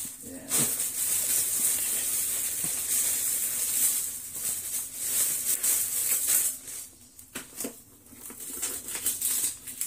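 Plastic carrier bag rustling and crinkling as it is handled and unpacked, with a quieter lull about seven seconds in.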